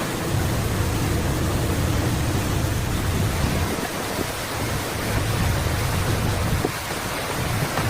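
Heavy diesel earthmoving machinery running: a low, uneven rumble under a steady rushing noise.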